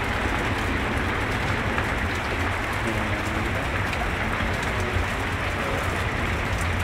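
Rain and water running over a flooded street, a steady hiss, with a constant low rumble underneath.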